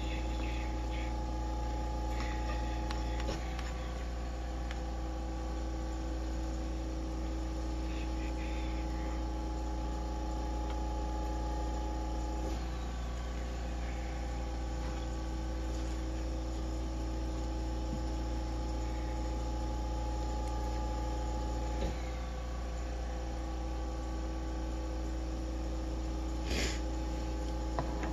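Steady electrical hum, with a couple of light taps later on.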